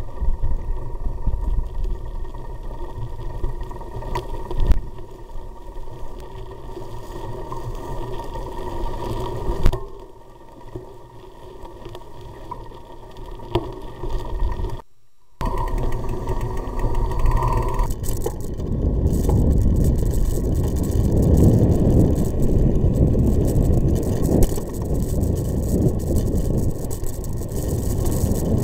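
Vehicle moving over a gravel track: a steady low rumble with wind noise. It cuts out briefly partway through and comes back much louder and rougher near the end.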